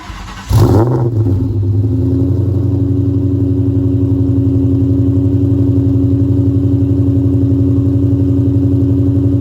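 2003 Mustang SVT Cobra's supercharged 4.6-litre V8 cold-started: a brief crank, then it catches with a loud flare about half a second in and settles into a steady idle.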